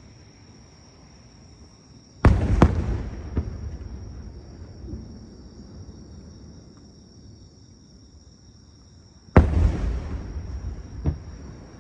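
Aerial fireworks shells bursting: two loud booms about seven seconds apart. Each trails off over a couple of seconds, with a few smaller pops after it.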